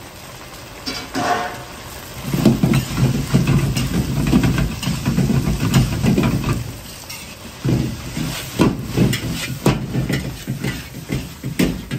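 Large carbon-steel wok being stir-fried over a commercial gas wok burner: the burner's steady rumble and hiss, food sizzling, and a ladle scraping and knocking against the wok. The stirring and clatter pick up about two seconds in and come in quick irregular strokes.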